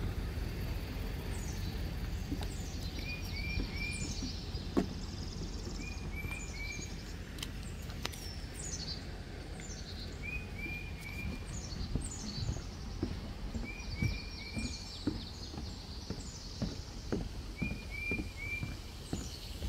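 Songbirds calling: a short three-note phrase repeated every three to four seconds, with clusters of high, falling chirps between, over a steady low rumble. Light footsteps on a wooden boardwalk tap in the second half.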